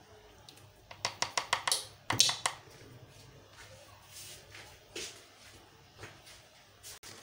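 Chilli sauce being added to a plastic mixing bowl: a quick run of about six clicks, a louder clatter just after, then a few faint knocks.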